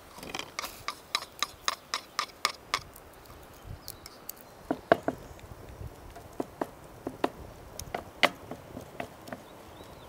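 Sharp clicks and knocks: a quick even run of about a dozen, some four a second, over the first three seconds, then scattered single ones, the loudest about five and eight seconds in.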